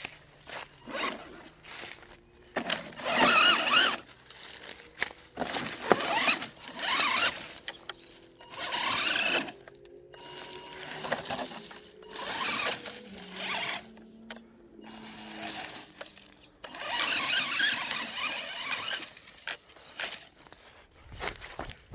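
Maverick Phantom XT electric RC truck driving off-road in repeated bursts: the motor and drivetrain whining and the tyres running over the ground, rising and falling about seven times.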